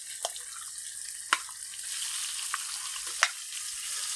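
Crumbled fresh tofu sizzling in hot oil and fried garlic in a wok as it is stirred, with three sharp clinks of metal utensils against the bowl and pan.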